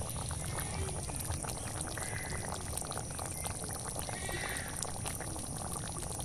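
Soya chunk and potato curry bubbling in a pot, with a steady run of small pops from the thick gravy.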